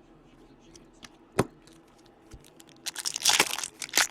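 Foil wrapper of a hockey card pack crinkling and tearing as it is opened, loudest about three seconds in. A single sharp click comes a little over a second in.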